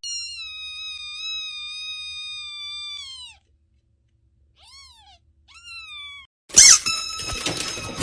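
A cat meowing: one long, high, drawn-out meow that drops in pitch at its end, then two short meows after a pause. About a second and a half before the end a loud, sudden burst of noise with a steady high tone cuts in.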